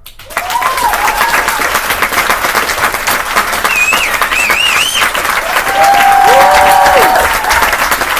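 An audience applauding steadily, with a couple of high calls or shouts rising over the clapping about halfway through.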